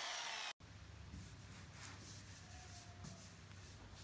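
Angle grinder with a sanding pad on a jackfruit-wood slice, its whine falling in pitch as the motor slows, cut off abruptly about half a second in. After that there is only a faint low hum with a few soft rubbing sounds.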